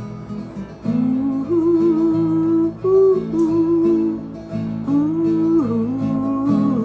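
Acoustic guitar strumming under a woman's wordless sung 'ooh' line of long held notes, which comes in about a second in.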